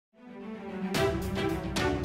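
Intro music fading in from silence with held notes, then a beat of drum strikes comes in about halfway through.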